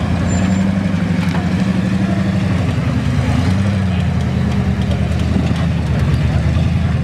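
V8 engine of a Range Rover-based competition 4x4 running at low revs as it crawls over a rock step, the engine note rising and dipping slightly about halfway through.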